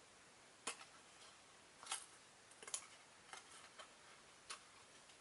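Small cardboard box being carefully pried and torn open by hand: six or seven faint, sharp clicks and crackles, scattered irregularly over a few seconds.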